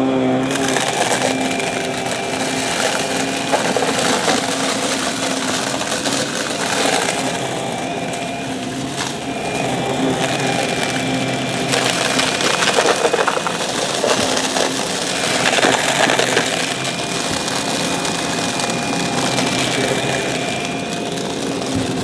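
Shark Navigator upright vacuum running on carpet with its brushroll spinning: a steady motor hum with a high whine, broken several times by crunching and rattling as it sucks up scattered small debris.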